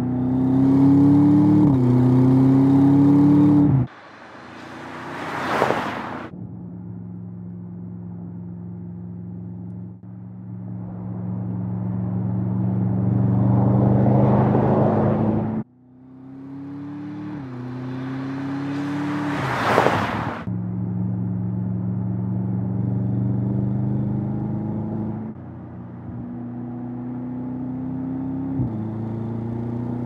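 Audi RS7 Sportback Performance's 4.0-litre twin-turbo V8 accelerating and shifting up, its pitch climbing and then dropping back at each gear change. The car twice rushes past close by, the loudest moments, and the sound cuts off abruptly twice.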